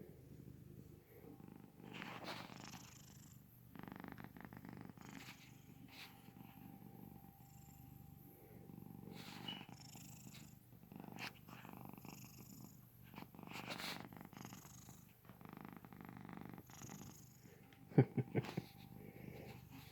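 Soft snoring: a low rumbling rasp on each breath, recurring every couple of seconds. A few sharp knocks come near the end.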